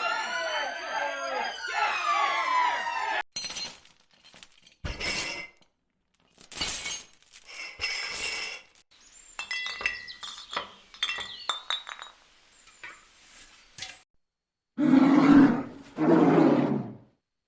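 A string of stock sound effects. First a wailing siren, which cuts off about three seconds in. Then a run of crashes with ringing, like glass shattering and clinking. Near the end come two loud roars.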